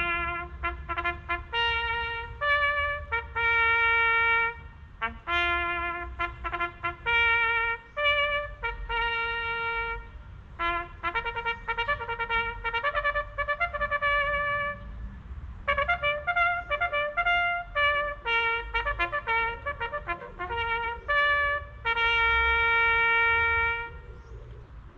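A solo bugle call played on a brass horn: a run of quick notes and longer held notes, all on the few open bugle pitches, ending shortly before the close.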